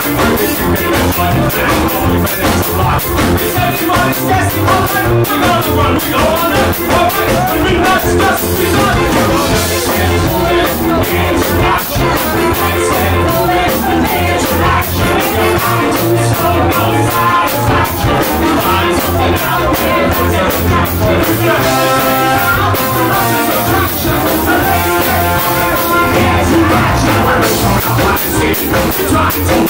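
Live ska band playing an upbeat song with drums, electric guitar, saxophone and trombone, with singing over a steady beat.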